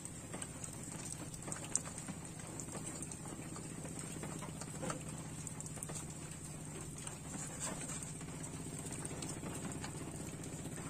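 Small wood fire crackling under fish grilling on a pot, with scattered soft clicks and pops and one sharper pop a little under two seconds in, over a steady low hum.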